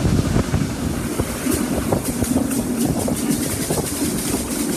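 Passenger carriage of a steam-hauled train running at speed, heard at the window: a steady rumble of wheels on rails with wind rushing over the microphone. Quick light ticking runs through the noise from about a second and a half in.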